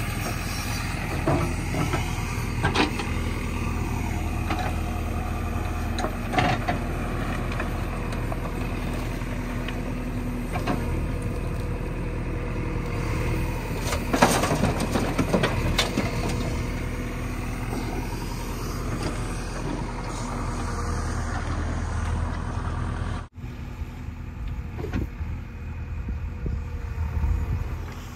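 JCB 3DX backhoe loader's diesel engine running steadily as it works the hydraulic arm, with occasional knocks and clatter of soil and stones tipped from the bucket into a steel tractor trolley.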